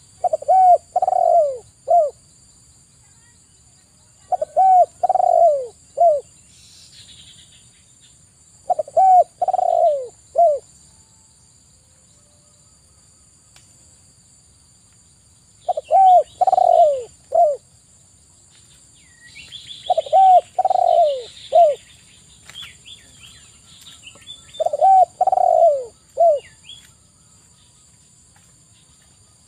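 Spotted dove cooing: six phrases of three or four low notes, about one phrase every four seconds. Faint high chirps of small birds come between phrases, mostly in the second half.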